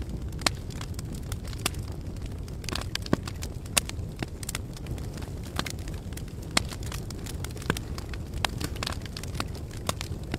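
Campfire burning, crackling and popping: sharp snaps at irregular intervals, several of them loud, over a steady low rumble.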